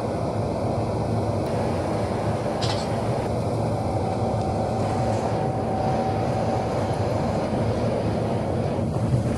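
Steady engine and road noise heard from inside a moving bus cruising at speed, with a low hum and a brief rattle a few seconds in.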